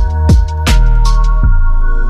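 Background electronic music with a heavy bass beat and sustained synth notes.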